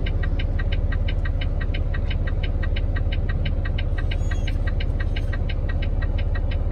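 Truck engine idling, heard from inside the closed cab as a steady low rumble, with a quick even ticking about five times a second over it.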